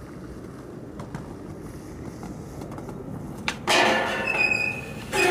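Skateboard wheels rolling on concrete with a low rumble. About three and a half seconds in, the board pops onto a metal stair handrail and slides down it with a loud metal scrape and a ringing squeal, and a second loud scrape comes near the end.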